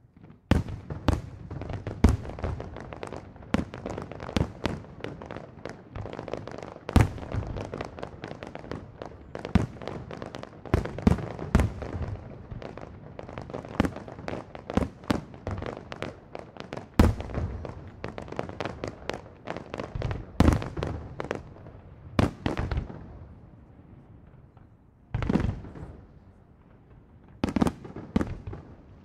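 Aerial fireworks display: a rapid barrage of shell bursts with crackling, packed close together for most of the time. It thins out a few seconds before the end, then two short flurries of bangs.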